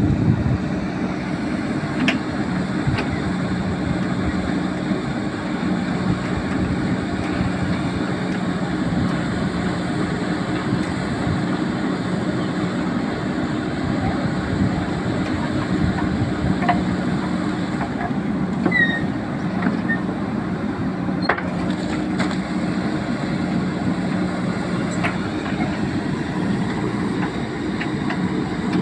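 JCB 3DX backhoe loader's diesel engine running steadily with an even hum, with a few faint clicks over it.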